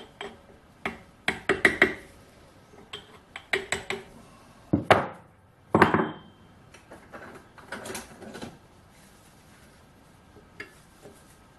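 Metal parts of a lathe headstock clinking, tapping and scraping as they are worked loose by hand, in irregular clusters of sharp knocks, with two short scrapes near the middle.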